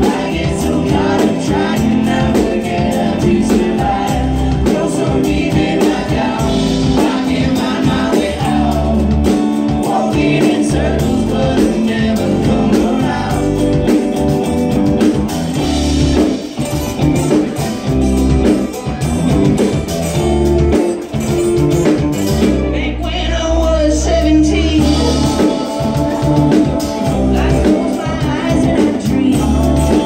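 A live band playing a song together: guitars, mandolin, upright bass and drum kit, at a steady, loud level.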